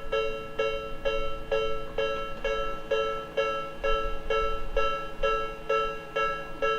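Japanese railway level-crossing warning bell ringing in a steady rhythm, about two ringing strikes a second, signalling that a train is approaching and the barriers are closing.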